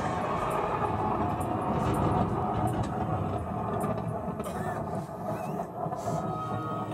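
A steady rumbling noise.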